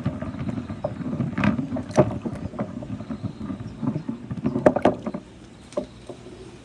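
Marbles rolling along a marble run: a steady rolling rumble with scattered sharp clicks of marbles knocking. The rolling stops a little past five seconds in, followed by one last click.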